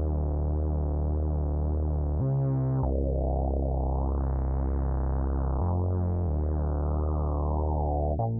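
Background synthesizer music: sustained keyboard chords over held bass notes that change every couple of seconds, with a brightness that swells and fades in the middle.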